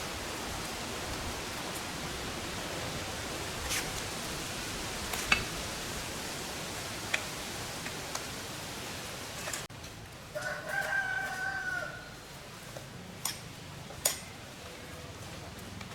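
A steady hiss with a few sharp clicks, then, after an abrupt cut, a rooster crowing once for about a second and a half, followed by a few more light clicks.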